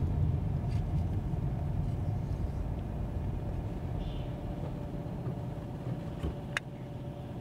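Car engine and tyre noise heard from inside the cabin: a steady low rumble that slowly gets quieter as the car slows. A faint click near the end.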